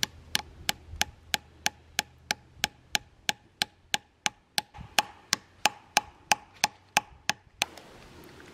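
A hammer tapping a metal sap spile into a maple tree trunk: light, evenly paced strikes, about three a second, each with a short metallic ring. The tapping stops shortly before the end.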